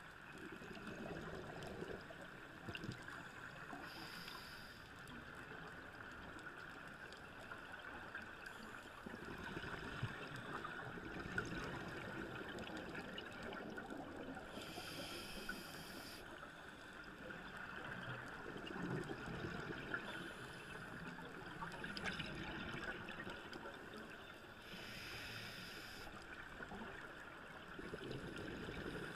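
A scuba diver breathing through a regulator, heard underwater. A short hiss of inhalation comes three times, about ten seconds apart, and between them run several seconds of gurgling exhaled bubbles.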